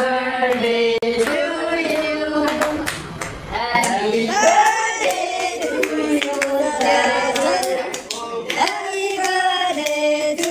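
A group of young men singing a birthday song together, with hand-clapping throughout.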